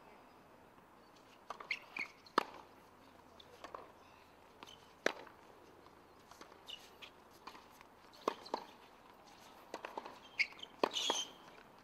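Sparse sharp taps and knocks of footsteps and tennis-ball bounces on a hard court between points, with a brief higher-pitched sound near the end.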